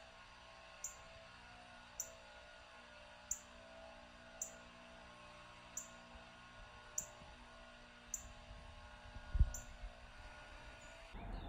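A small bird repeating a short, high chirp about once a second, evenly spaced, over a faint steady hum. A single low thump about nine seconds in.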